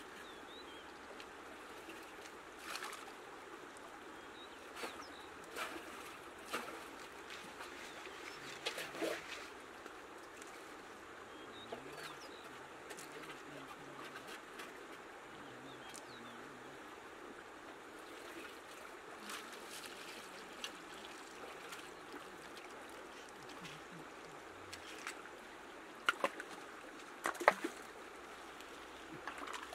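Shallow river water running steadily over stones, with scattered clicks and splashes from gravel being sieved in the water. A few sharper clacks come near the end.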